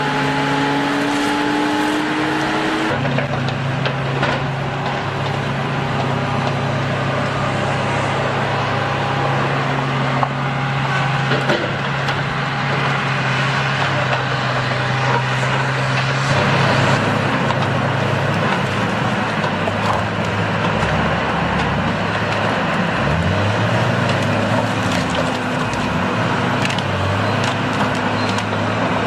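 Engines of tree-felling machinery running steadily, with wood cracking and splintering. The sound changes abruptly about three seconds in and again past halfway.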